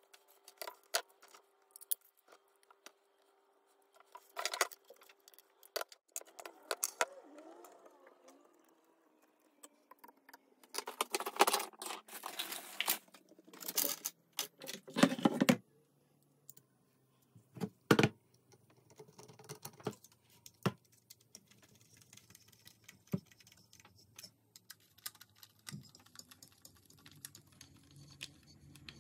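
Metal parts of an injection rifle being handled and fitted to its wooden stock: irregular clicks, clinks and light knocks, with a busier clattering of small metal parts near the middle.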